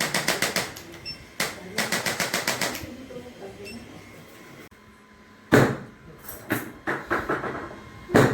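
Two short runs of rapid, evenly spaced mechanical clicks, about eight a second, then two loud sharp thumps in the second half.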